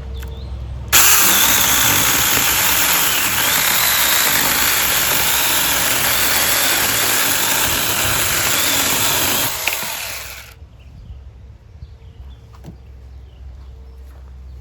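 Saker mini cordless 20-volt electric chainsaw running for about nine seconds, starting abruptly and winding down shortly before ten seconds in.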